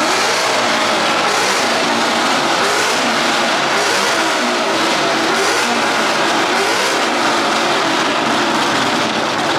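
A car engine running hard and loud at high revs, with a steady, dense rushing noise that holds at one level throughout.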